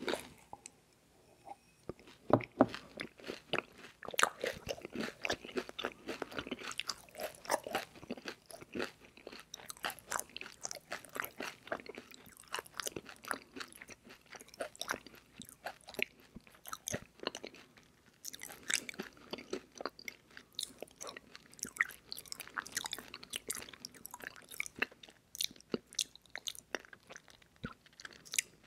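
Close-miked eating mouth sounds: a person chewing crunchy cereal treat bars, a dense run of crisp crunches and chewing. There is a short pause within the first two seconds.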